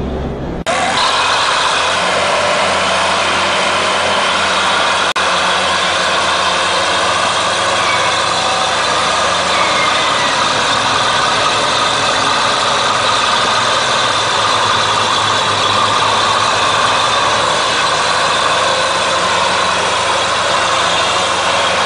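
Heavy diesel engines of a crawler bulldozer and a loaded truck running steadily under load as the dozer pulls the truck through deep mud, with a brief click about five seconds in.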